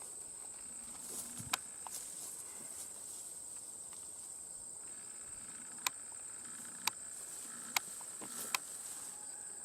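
Crickets chirring in a steady high-pitched trill, with about five sharp clicks scattered through the second half.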